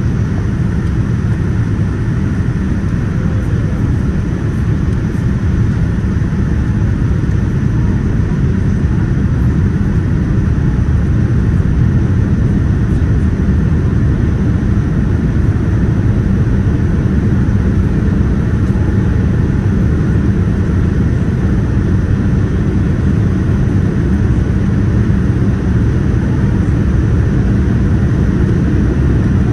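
Steady cabin roar inside a Boeing 787-10 airliner in flight: engine and airflow noise heard from a window seat, a deep rumble with a fainter hiss above it.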